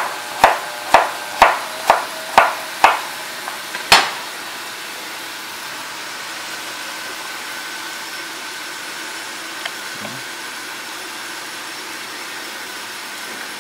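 Chef's knife chopping a potato on a wooden cutting board: six sharp knocks, about two a second, then one louder knock about 4 seconds in. After that, a steady low hiss of food sizzling in the pans on the stove.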